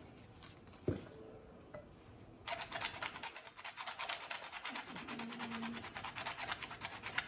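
A wedge of parmesan grated by hand on a flat handheld cheese grater: rapid, even scraping strokes that start about two and a half seconds in. A single knock comes about a second in.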